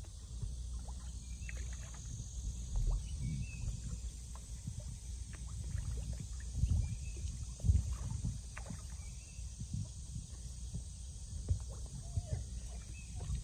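Steady low wind rumble on the microphone, with scattered faint small pops and splashes at the water's surface.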